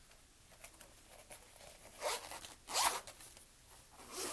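Zipper of a zip-up travel organizer case being unzipped in three short rasping pulls, at about two, three and four seconds in.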